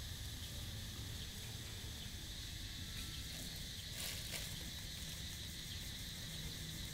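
Outdoor ambience of a steady high insect drone over a low rumble, with a few soft crunching clicks about four seconds in from a dog chewing a piece of bread.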